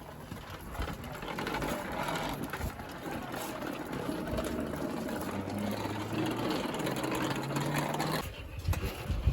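A motor vehicle's engine running steadily with a low hum, stepping up in pitch, then cutting off suddenly about a second before the end.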